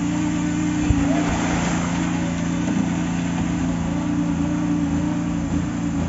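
Steady low drone of concrete-pouring machinery running, with a single knock about a second in.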